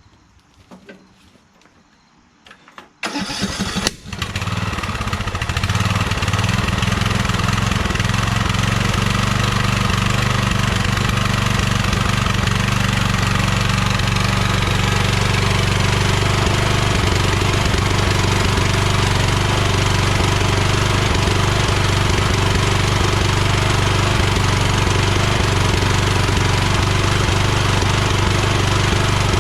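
Lawn tractor engine started with its electric starter about three seconds in; it catches, dips once, and then runs steadily.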